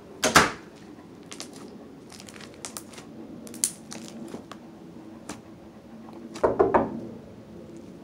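Pink slime being stretched, pressed and kneaded by hand, giving small crackling pops throughout, with two louder squelches: one just after the start and a short cluster about six and a half seconds in.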